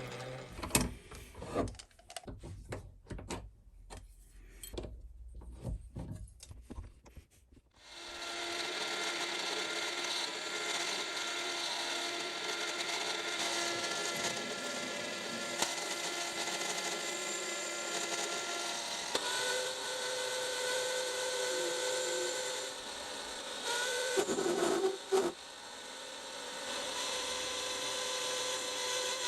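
Scattered knocks and clatter of tools and stock being handled, then about eight seconds in a small workshop power tool starts and runs steadily, its motor whine mixed with the scraping of metal being cut.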